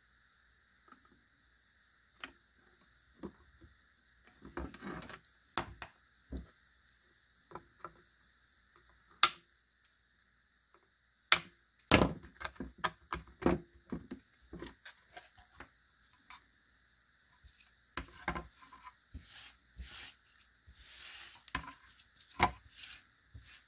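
Hands handling a circuit board and clipped wire leads on a wooden bench: scattered clicks, taps and rubs as the board is turned over, with a faint steady high whine underneath.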